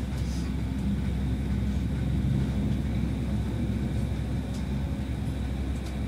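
Running noise of an S-Bahn electric commuter train, heard inside the carriage: a steady low rumble of wheels on the track, with a few faint clicks.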